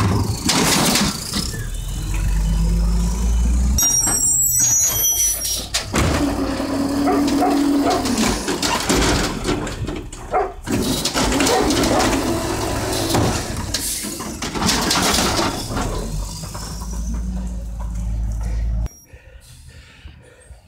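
Natural-gas Mack LE automated side-loader garbage truck working close by: the engine runs under load while the hydraulic lifting arm and compactor whine, squeal and clank, with several loud bursts of noise. The sound drops off suddenly near the end.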